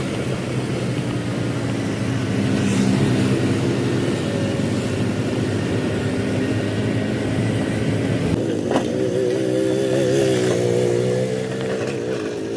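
Motor vehicle engine running steadily. About eight and a half seconds in there is a sharp click, and a higher, wavering engine note takes over.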